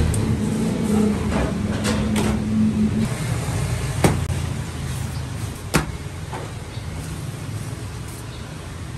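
Steady low machine hum in a dough workshop, with a higher steady tone that stops about three seconds in. Over it come several sharp knocks, the loudest about four and six seconds in, as dough is handled in a steel mixer bowl and a steel tray.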